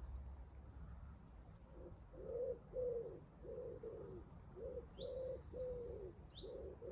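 Common wood pigeon cooing: a rhythmic series of low coo notes starting about two seconds in. Two short high chirps from a small bird come in the second half.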